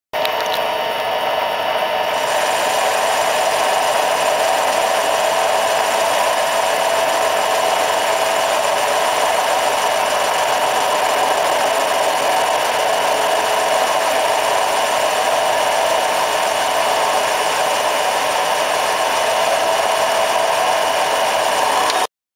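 Micro lathe running steadily with a whirring motor while it turns down the outside of a small model-engine piston; the sound cuts off suddenly near the end.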